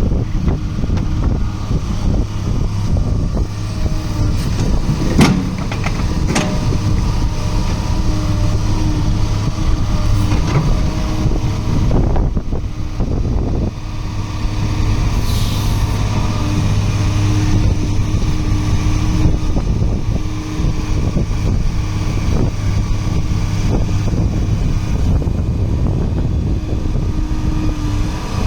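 Diesel engine of a Cat M316C wheeled excavator running steadily, with a few scattered knocks and clanks.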